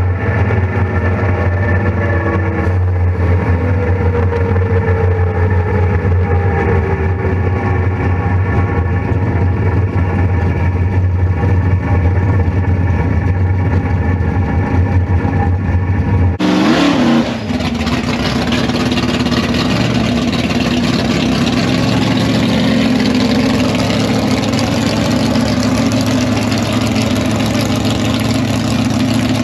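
Drag race car engines running: a steady low drone with a few falling pitch sweeps, then an abrupt change about halfway through to a rougher, noisier engine sound that carries on.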